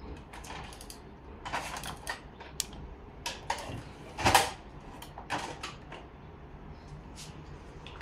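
Scattered light clicks and knocks from hands working on an inkjet printer's parts, with one louder knock about four seconds in.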